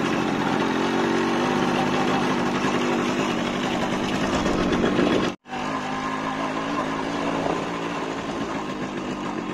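Yamaha RX 100 motorcycle's two-stroke single-cylinder engine running steadily while riding. The sound drops out for a moment about halfway through and then carries on.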